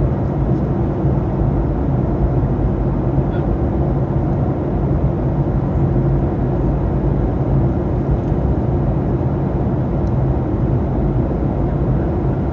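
Airliner cabin noise in flight: a steady drone of engines and rushing air with a constant low hum.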